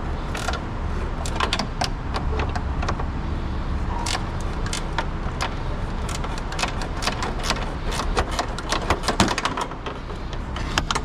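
Long 10 mm ratchet wrench clicking in quick runs of strokes as it works a bolt, over a steady low hum.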